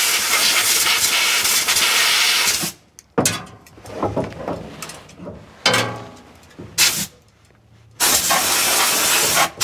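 Compressed air hissing from an air-hose blow gun, blowing dirt off around the spark plugs on top of a Willys FC-170's engine. A blast of nearly three seconds comes first, then two short puffs, then another blast near the end.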